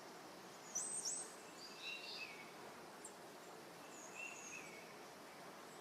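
Faint bird chirps and calls over a low steady hiss of nature-ambience background: two quick rising chirps about a second in, then scattered short calls.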